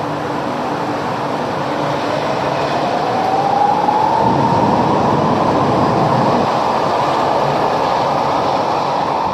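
Stuttgart Stadtbahn light-rail train running, with a motor whine that rises in pitch as it accelerates, over steady wheel and rail noise.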